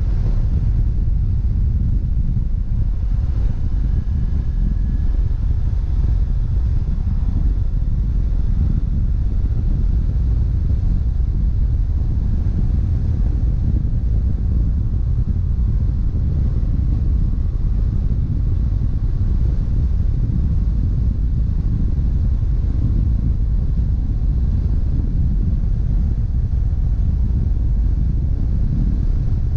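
BMW F700GS's 798 cc parallel-twin engine running at road speed under a steady low rumble of wind and road noise on the handlebar-mounted action camera's microphone.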